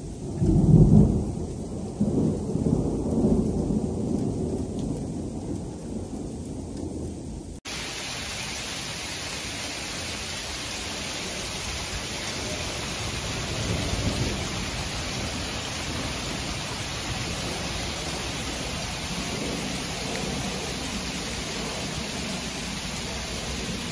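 Thunder during sleet: a loud crack about a second in, rolling on in low rumbles for several seconds. After a sudden cut, a steady hiss of sleet falling on roofs and ground follows, with a brief low rumble of thunder swelling about fourteen seconds in.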